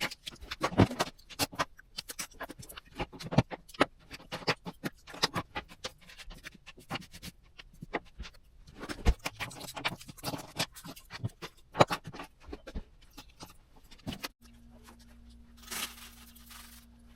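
Handling noises: a rapid, irregular run of small clicks, taps and rattles, like small plastic and metal parts being handled. About two-thirds of the way through it cuts to a steady low hum with a brief hiss.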